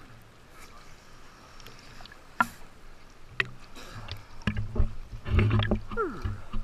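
Water lapping and splashing against a waterproof camera held at the surface, with a few sharp knocks on the housing. It grows busier and louder in the second half.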